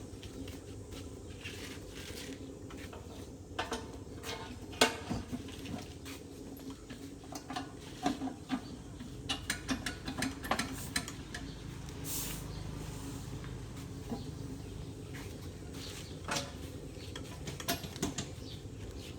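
Scattered light metallic clinks and knocks from metal parts being handled, a few of them ringing briefly and the sharpest about five seconds in, over a steady low hum.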